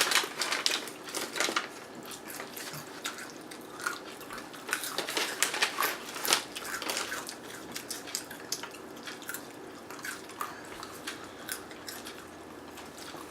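People chewing crunchy snacks: irregular sharp crunches and clicks of biting and chewing.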